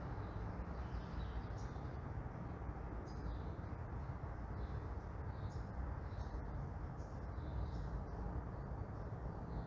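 Morning neighbourhood ambience: a steady low rumble of distant traffic, with small birds giving short high chirps about once a second.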